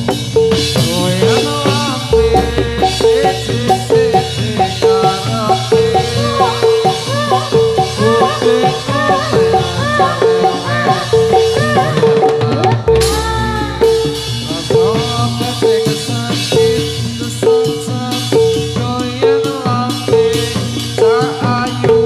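Jathilan accompaniment music: Javanese gamelan-style ensemble with drums and rattles, a metallic note striking steadily about every 0.8 seconds over the beat.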